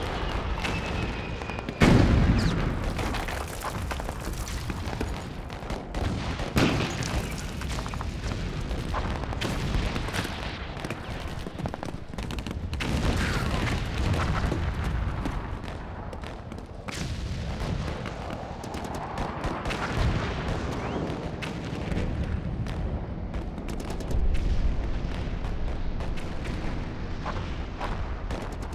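Battle sound effects: a continuous low rumble of gunfire and explosions. A faint falling whistle leads into the loudest blast about two seconds in, and further heavy blasts come near seven seconds and near the end.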